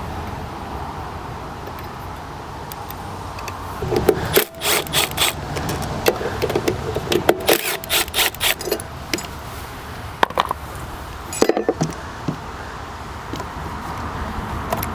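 Irregular clicks, clanks and rubbing of hand tools and metal parts being handled, coming in clusters a few seconds in and again twice later, over a low steady background rumble. These are the sounds of the lawnmower's carburetor being unbolted and taken off.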